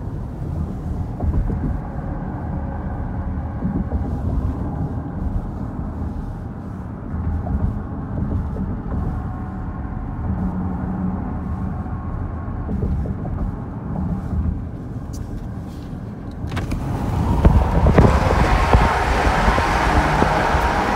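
Road noise of a moving car heard from inside the cabin: a steady low rumble of tyres and engine. About 16 seconds in, a louder rushing sound of wind on the microphone starts suddenly and stays.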